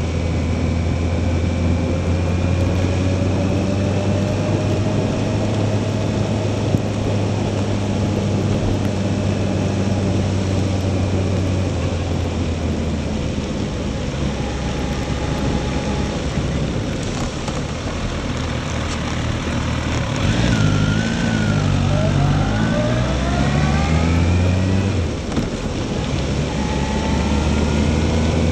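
Motorcycle engine running steadily at low road speed, with wind and tyre hiss on a wet road. About twenty seconds in, the engine note climbs in a few quick rising steps as the bike accelerates through the gears.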